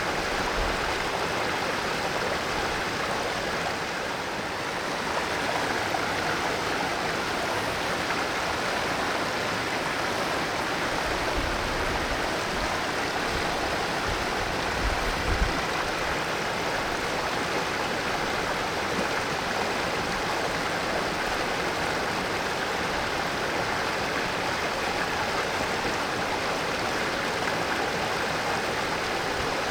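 Mountain valley stream rushing and splashing steadily over rocks, with a few low bumps around the middle.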